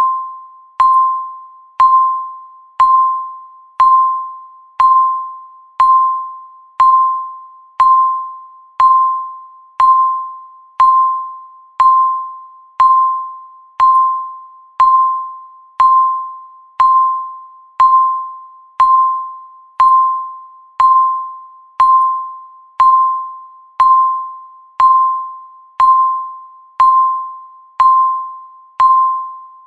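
Countdown timer beeping once a second, each beep marking one second passing. Each beep is a single ringing electronic tone that starts sharply and fades away before the next.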